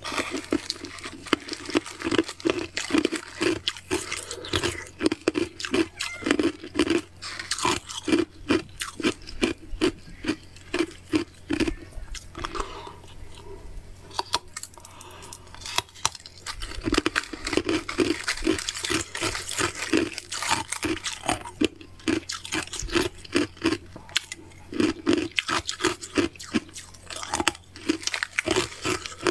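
Ice being bitten and chewed close to the microphone: runs of quick, crisp crunches with short pauses between mouthfuls.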